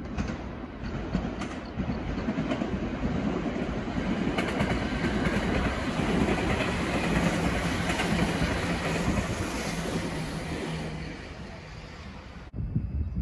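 An electric commuter train passing on a far track, its wheels clattering over the rails, with a steady low hum in the middle of the pass. The sound builds up, fades a little, and cuts off abruptly near the end.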